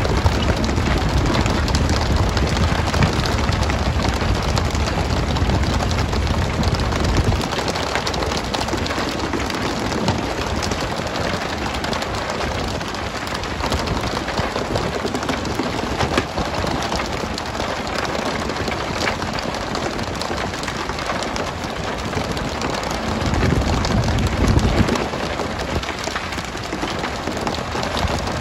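Dense, steady rain-like hiss of the stern water sprays falling on the sea while skipjack tuna are hooked and splashed aboard with poles and lines. A deeper rumble runs under it for the first seven seconds and comes back briefly about 23 seconds in.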